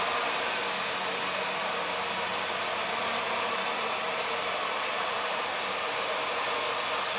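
A 2000 Chevrolet S10's 4.3-litre V6 idling steadily.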